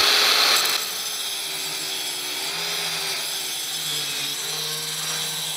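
Angle grinder grinding the edges of an O1 tool-steel knife blank smooth: a steady grinding hiss over the motor's whine, whose pitch wavers and dips as the disc bites the steel. It is loudest for about the first second, then settles a little lower.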